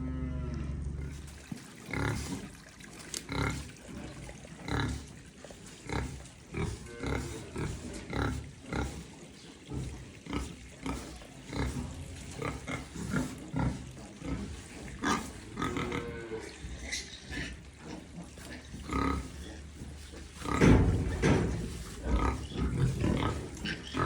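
Pigs grunting, short grunts every half second to a second, with a louder, busier stretch of grunting near the end. A low steady hum stops about a second and a half in.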